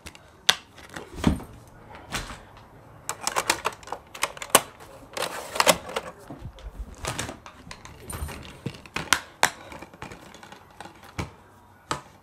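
Handling noise: irregular hard clicks, taps and knocks from objects being picked up and moved, some in quick clusters, with a few sharper clacks.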